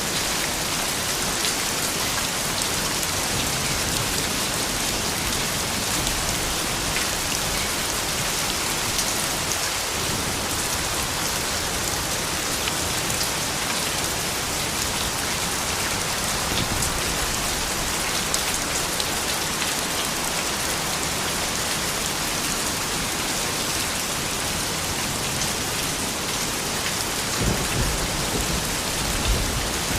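Steady rain falling on a surface, an even hiss with fine drop ticks, and a low rumble near the end.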